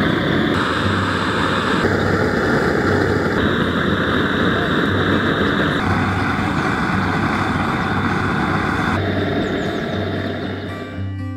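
Propane burner firing a raku kiln: a loud, steady gas-flame roar that shifts in tone abruptly a few times and fades near the end.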